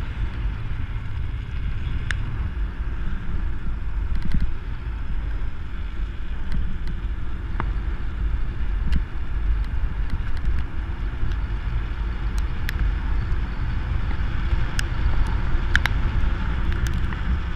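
Wind buffeting the microphone of a handlebar camera on a mountain bike coasting fast downhill, a steady low rumble with a few sharp clicks scattered through it.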